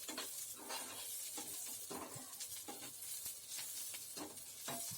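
Sliced onions frying in oil in a pan, sizzling faintly as they soften and brown, with stirring strokes scraping through them every half second to a second.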